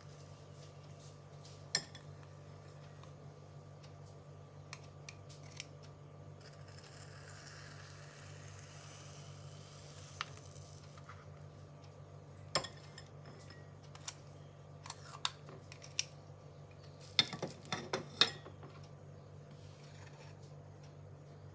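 Metal ice cream scoop scraping through frozen ice cream in a plastic tub, with scattered sharp clicks and knocks of the scoop against the tub and a ceramic bowl. A quick cluster of clinks comes about three-quarters of the way through, over a steady low hum.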